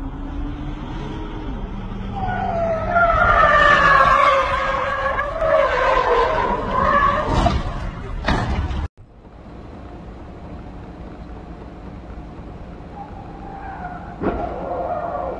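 A vehicle's tyres squealing for several seconds as it skids, then two heavy crash impacts about a second apart. After a sudden cut, steady road noise with a short squeal and a knock near the end.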